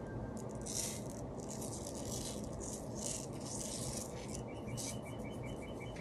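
Scratchy rubbing and rustling in a string of short, irregular bursts over a steady low background.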